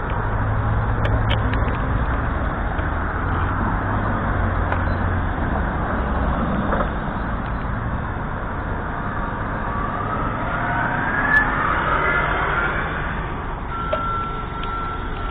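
Road traffic at a street intersection: motor vehicles running and driving past, with a low engine hum for the first few seconds and a rising engine whine from about ten seconds in as a vehicle pulls away. A short steady high-pitched tone sounds near the end.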